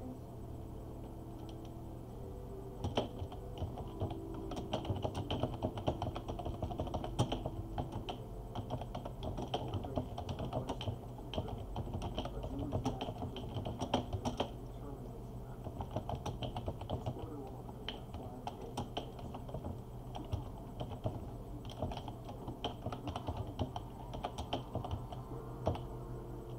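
Computer keyboard typing in quick bursts of keystrokes with short pauses, starting about three seconds in, over a faint steady low hum.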